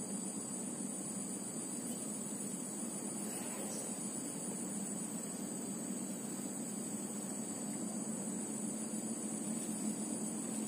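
Insects chirring in one continuous high-pitched drone over a low, steady background rumble.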